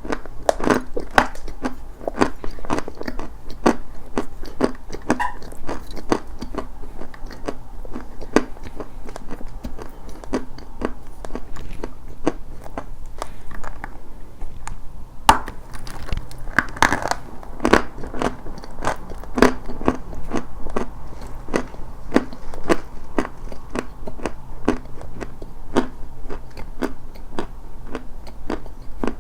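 Dry white chalk being bitten and chewed: a steady run of irregular, crisp crunches and cracks.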